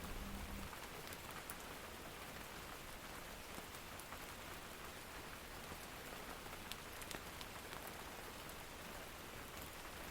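Steady, faint rain heard from inside a small cabin, an even hiss with a few sharp ticks of individual drops.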